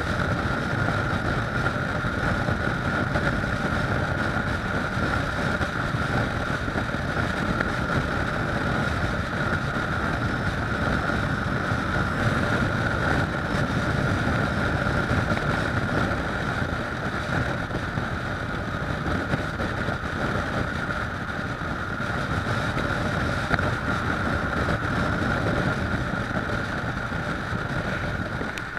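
Kawasaki ER-6f motorcycle's parallel-twin engine running at a steady cruise, mixed with wind rushing over the microphone, with a steady high whine over a low rumble.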